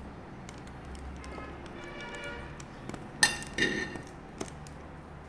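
Tableware clinking on a dinner plate: two sharp, ringing clinks a little past three seconds in, then a lighter tap about a second later, over a low steady hum.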